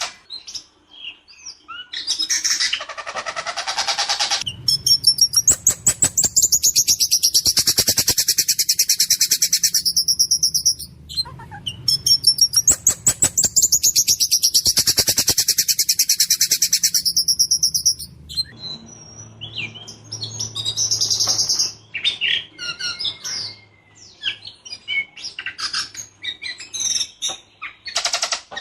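Ciung batu songbird singing in full song: a few scattered chirps, then two long runs of very fast repeated, rolling notes with a harsh edge, then varied short chirps and whistles.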